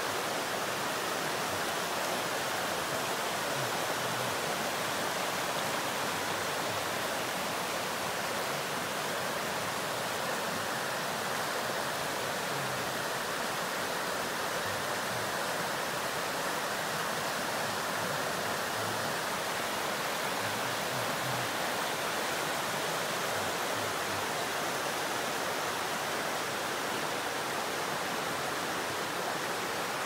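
A shallow stream rushing over rocks and stones in a steady, even rush.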